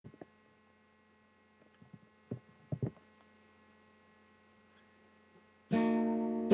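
Faint steady electrical hum with a few soft clicks and knocks, then near the end an acoustic guitar is strummed and its chord rings on.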